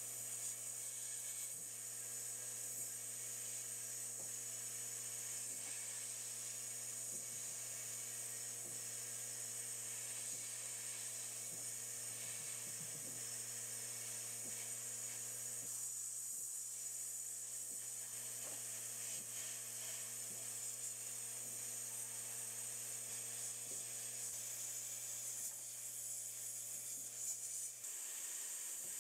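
Sandblast cabinet gun blasting abrasive onto a small pressed-steel toy truck part: a steady hard hiss of air and grit. A steady low hum underneath cuts off near the end.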